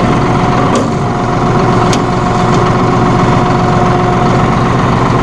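John Deere 5045E's 2.9-litre three-cylinder diesel engine running steadily at low speed, with a steady whine above its drone. Two faint clicks in the first two seconds.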